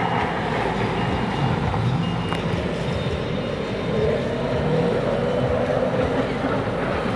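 Several racing jet skis (personal watercraft) running at high revs, their engine pitch rising and falling as riders throttle through turns.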